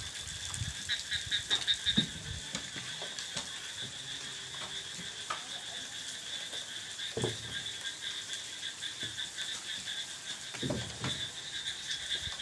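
A chorus of frogs calling steadily from rain-flooded rice paddies, a continuous pulsing trill, with a few dull knocks now and then.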